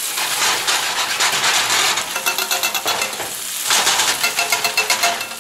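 Sliced carrots and parsnips sizzling in olive oil in a stainless steel skillet. They are being stirred and turned with metal tongs that scrape along the pan.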